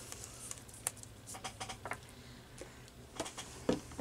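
Faint, scattered light clicks and taps of small craft tools, a paintbrush and a little cup of stain, being handled, a few a little louder towards the end.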